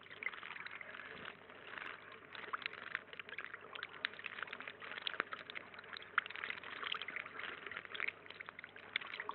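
Water trickling and splashing into a shallow garden pond, with many small, quick splashes from blue tits bathing in it.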